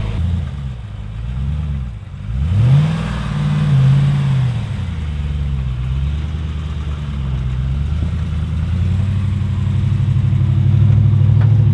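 4x4 truck engine revving up and down in several surges, with a sharp climb in pitch about two and a half seconds in, then running at a steadier, higher pitch near the end.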